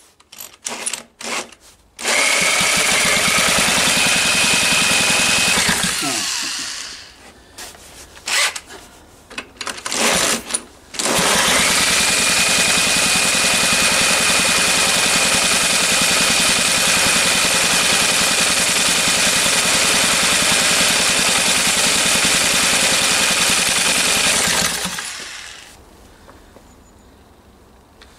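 Electric drill spinning over a small engine's crankshaft in an attempt to start it, with the drill motor's high whine over the churn of the engine turning. A run of a few seconds winds down with a falling whine, several short bursts follow, then a steady run of about thirteen seconds that stops well before the end without the engine firing.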